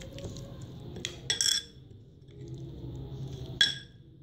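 Metal spoon stirring a thick, wet masala paste in a cut-glass bowl, scraping and clinking against the glass, with sharp clinks about a second and a half in and again near the end.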